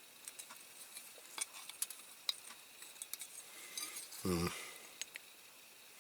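Faint, scattered metal clicks and scrapes of pliers gripping and working a small part on a diecast toy car, with a brief vocal sound about four seconds in.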